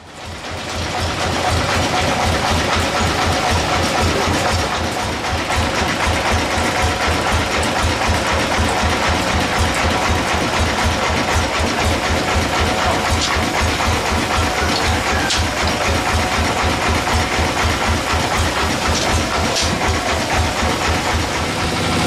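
Engine powering a band sawmill, running steadily with a regular low beat about four times a second.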